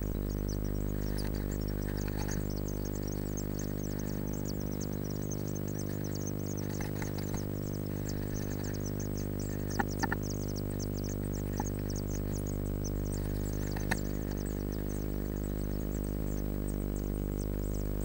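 Blue tit nestlings cheeping rapidly and high-pitched, over a steady electrical hum from the nest-box camera. A few sharp taps and scratches from the adult shifting in the nest, about ten seconds in and again near fourteen seconds.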